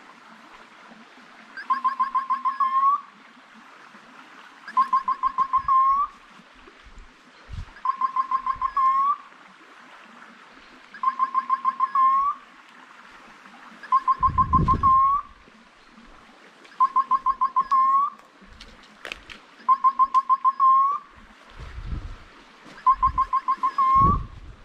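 Electronic beeper collar on a hunting dog sounding a repeated call: about a second of rapid chirps ending in an upward flick, every three seconds, eight times in a row. A few low thumps are heard beneath it, the loudest about halfway through.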